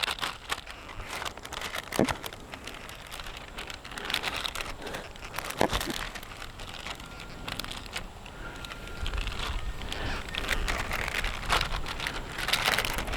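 Body filler and hardener being scooped up and smeared on a paper mixing sheet: irregular scraping and crinkling of the paper, with scattered clicks and taps.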